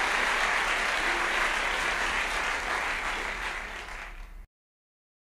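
Crowd applause, a dense steady clapping that slowly fades and then cuts off suddenly about four and a half seconds in.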